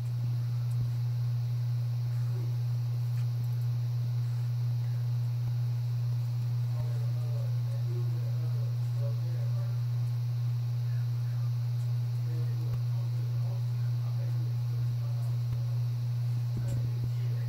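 A steady low hum, with faint, indistinct voices in the background from about six seconds in.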